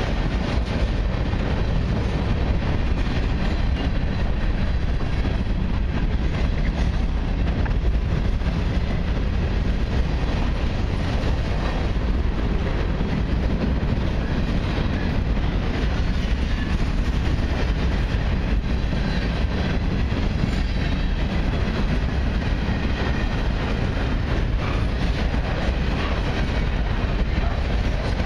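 Freight cars of a long mixed freight train rolling past close by, tank cars giving way to covered hoppers: a steady rumble of wheels on rail that holds level throughout.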